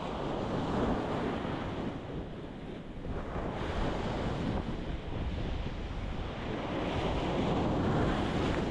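Ocean waves breaking on a rocky shore, the surf swelling and easing in three surges.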